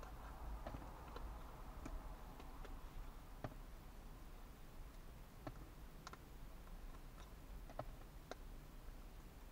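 Faint, irregular clicks and taps of thin plywood kit pieces being handled and fitted together, one sharp tick every second or so.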